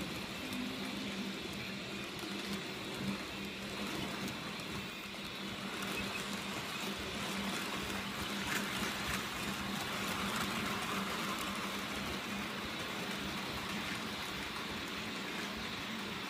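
H0 scale model freight train rolling past on the layout track: wheels rattling and clicking over the rails with a steady electric motor hum. It is a little louder about halfway through as the wagons pass closest.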